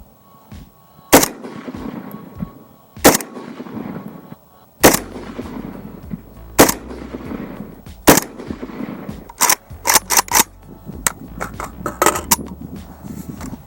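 Five rifle shots from a Palmetto State Armory GF3 AK-47 firing Norinco 7.62x39 ammunition, slow and evenly paced, one every one and a half to two seconds, each with a short ringing tail. After them comes a quicker run of quieter sharp cracks.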